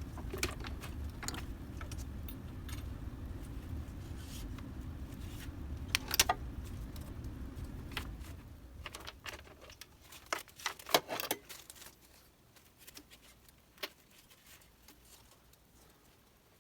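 Clicks and rattles of the delta printer's rods and small parts being handled and fitted into place, with a sharp clack about six seconds in and a cluster of knocks around eleven seconds. A low steady hum underneath stops about eight seconds in.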